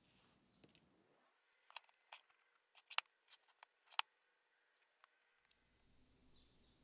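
Small metal air-compressor pump valves and parts being handled and set down on a workbench: a quick run of sharp clicks and knocks between about two and four seconds in, the loudest two near the end of the run.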